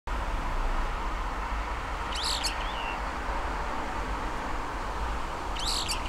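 Brown-eared bulbul giving two high, harsh calls about three and a half seconds apart, each ending in a short whistled tail note, over a steady low background hiss.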